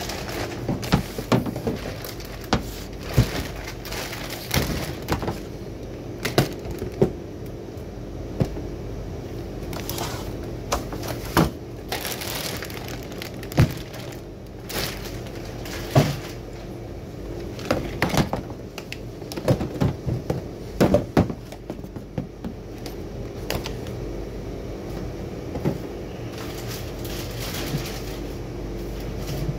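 Plastic net bag of carrots being torn open and handled: irregular crinkling and sharp cracks, with the odd knock of carrots, over a steady low hum.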